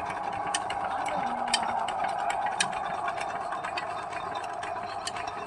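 12 hp single-cylinder stationary diesel engine running steadily, belt-driving a borewell water pump, a continuous hum with sharp clicks now and then.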